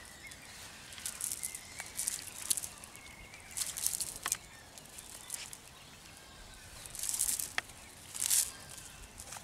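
Wet cast net swishing and rustling against grass in short bursts as it is shaken and lifted, the loudest bursts about four seconds in and twice near the end. Faint bird calls chirp behind.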